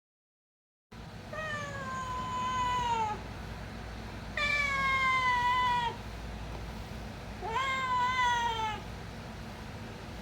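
Domestic cat meowing three times in long, drawn-out calls that fall slightly in pitch, a hungry cat begging for food.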